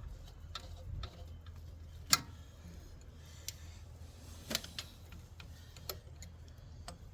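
Scattered small metal clicks and taps from hand tools and a thermostat housing bolt being worked into place in the engine bay, with the sharpest click about two seconds in and another just past four seconds. A low steady hum lies underneath.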